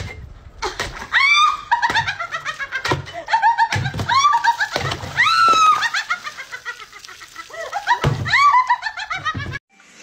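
A woman shrieking and laughing in quick, high-pitched rising-and-falling whoops, over several heavy thuds of a tool striking. It all cuts off suddenly near the end.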